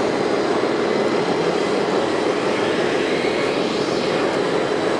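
Radio-controlled model construction machines running: a steady mechanical whirring from their small motors, with a faint motor whine rising and falling about two to four seconds in.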